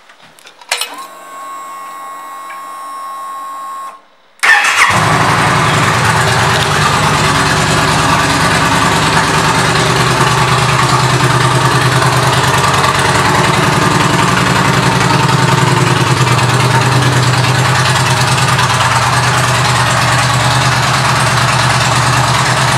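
2009 Yamaha V Star 950's air-cooled V-twin, fitted with a Vance & Hines 2-into-1 exhaust, started up: a few clicks and a steady hum for about three seconds, then the engine catches about four and a half seconds in and settles into a steady idle.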